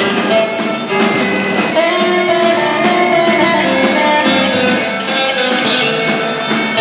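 Twarab (Comorian taarab) band playing: plucked guitar lines over a steady beat, with tambourine jingles on the beat.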